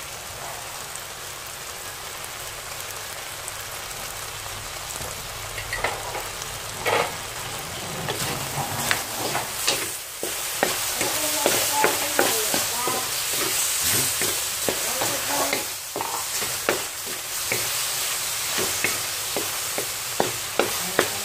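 Chopped squid in ink sauce sizzling in a metal wok. From about six seconds in, a wooden spatula stirs and scrapes the food around the pan in a run of quick scrapes and knocks over the steady sizzle.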